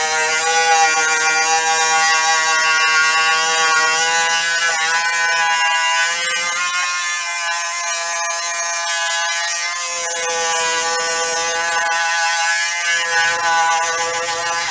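Electric buffing machine running with a steady high-pitched whine that wavers slightly, cutting off abruptly at the end.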